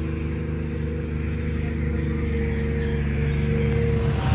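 A large vehicle engine running steadily at a constant speed, a low, even drone that grows slightly louder toward the end.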